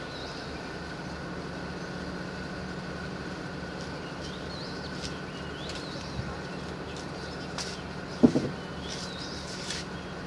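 Distant diesel locomotive of an approaching train, its engine humming steadily, with birds chirping now and then. A single sharp knock sounds about eight seconds in.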